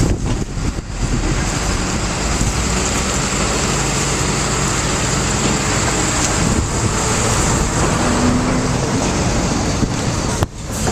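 Steady, loud machine noise with a low hum, typical of a mill-size baler's hydraulic power unit running; it briefly drops out near the end.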